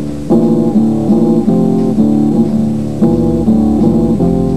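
Background music: pitched chords changing in a quick, even rhythm, two or three a second.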